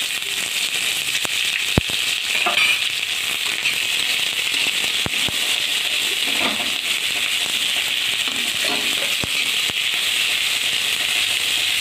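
Sliced onions frying in hot oil in a metal kadai, a steady sizzle, with a few sharp clicks of a metal spatula against the pan as they are stirred.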